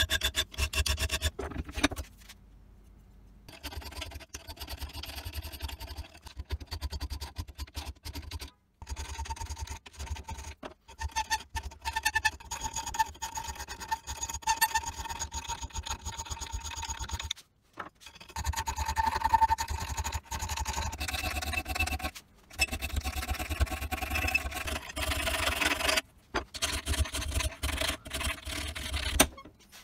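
Hand files rasping back and forth over the edge of a steel karambit blank cut from a motorcycle brake rotor, clamped in a bench vise. The strokes come fast and unbroken in several runs, cut off by a few short breaks.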